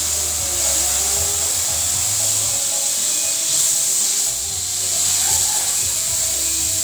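CO2 laser cutter cutting plywood: a steady high hiss of air assist blowing through the cutting nozzle, with shifting motor tones as the head traces the cut and a low hum that comes and goes.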